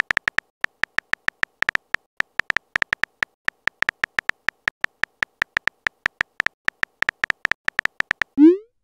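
Simulated phone-keyboard typing sounds from a texting-story app: a quick, irregular run of short, high tapping clicks, several a second, as a message is typed out letter by letter. Near the end comes a short rising blip, the app's message-sent sound.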